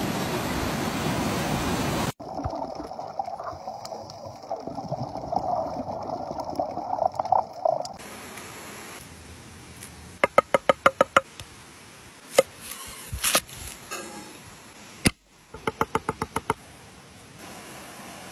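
About two seconds of rushing river water, then a knife chopping fresh herbs on a wooden board: two quick runs of about eight chops each, with a few single knocks between.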